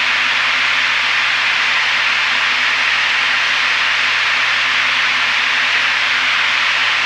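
Steady in-flight cabin noise of a Piper PA-32R Saratoga: its six-cylinder Lycoming engine and propeller running at an unchanging setting, heard as an even hiss with a low steady hum underneath.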